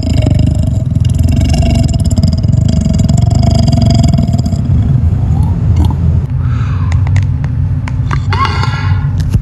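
A woman belching at length: one long, low-pitched burp whose tone shifts about six seconds in.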